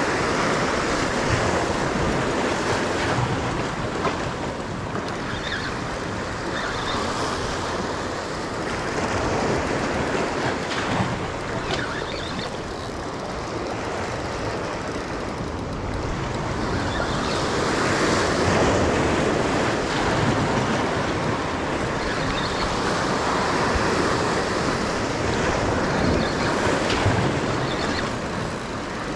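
Sea surf washing against jetty rocks, with wind on the microphone; the rush of water swells and eases every several seconds.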